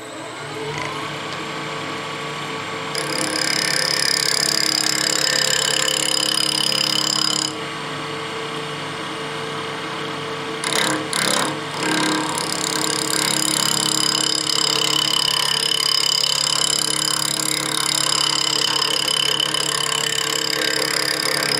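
Wood lathe running with the blank spinning on an offset centre, its motor hum steady. A hand-held turning tool cuts the spinning wood in long loud stretches, broken by a pause near the middle with a few short touches, as one side of the eccentric blank is shaved down.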